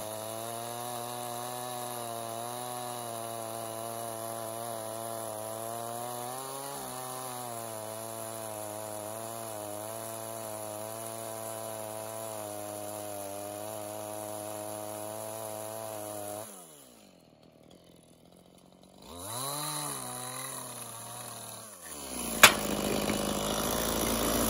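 Chainsaw running steadily at high revs while ripping a flat lengthwise along a log, its pitch wavering slightly under load. About 16 seconds in, the revs fall away, then briefly rise and fall again a few seconds later. A sharp click near the end is followed by a steady rushing noise.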